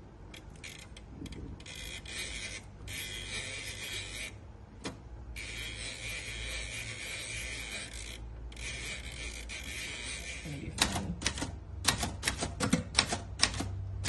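Remington portable typewriter: its ribbon spool is wound by hand in two rasping stretches of a few seconds each, as a new ribbon goes on. From about ten seconds in, keys are struck one at a time, about three sharp clacks a second.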